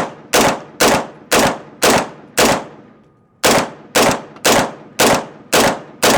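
9mm blowback AR-pattern pistol-caliber carbine fired semi-auto in a steady string, about two shots a second, each shot followed by a short echo. There is a pause of about a second near the middle of the string.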